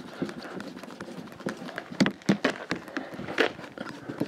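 Clay bar rubbing along a car's rear-window rubber seal and the paint beside it, making irregular scuffs and squeaks, with a few louder ones in the second half.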